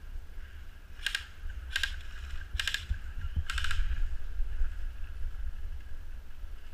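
Four short bursts of muffled airsoft gunfire, each a quick rattle of shots, coming about a second apart in the first half, over a low rumble of wind and handling on the camera housing.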